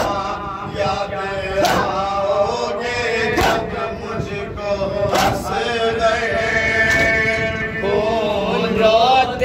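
Men's voices chanting a nauha, a Shia Muharram mourning lament, in long held notes, with sharp hand slaps of matam (chest-beating) landing about every 1.7 seconds in the first half.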